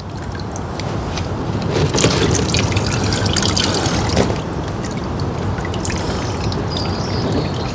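Coolant running out of the Honda VF1000's open water-pump drain hole and splashing into a drain pan below as the cooling system is drained. It is a steady trickling that grows louder over the first couple of seconds, then holds.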